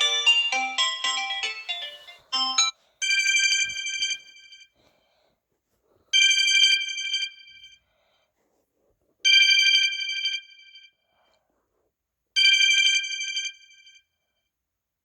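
Mobile phone ringtones: a short chiming melody ends about two and a half seconds in, then a bell-like ring tone sounds four times, about every three seconds, with silence between rings.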